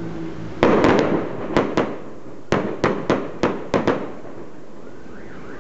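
Aerial fireworks bursting: a loud cluster of bangs about half a second in, then about a dozen sharp cracks over the next three seconds.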